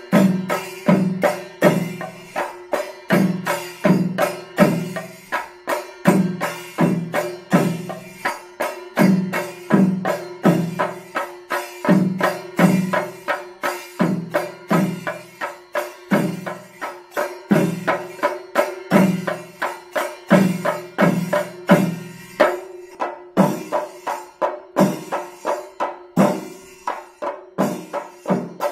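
Chenda drums played with sticks in a temple ensemble: a fast, unbroken rattle of stick strokes with heavy beats landing in groups, broken by a few short breaks.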